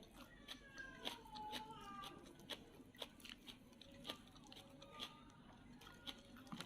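Cats meowing faintly to one another in drawn-out, wavering calls, most clearly between one and two seconds in, over scattered sharp clicks of chewing.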